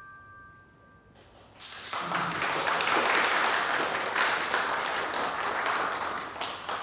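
Applause from a group of people clapping. It starts about a second in, builds quickly and dies away near the end.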